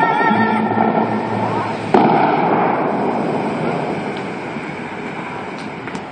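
The last notes of the fountain show's music, then about two seconds in a sudden blast as the Bellagio fountain's jets shoot high. A steady rush of water spray follows and slowly fades.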